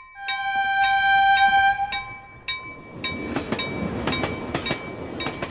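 A train horn sounds one steady note for about two seconds over a bell ringing in repeated strokes. Then a train rolls by, its wheels clicking over the rail joints.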